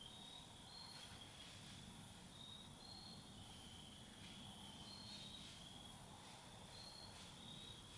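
Faint crickets: a steady high trill with shorter, slightly higher chirps repeating about once a second.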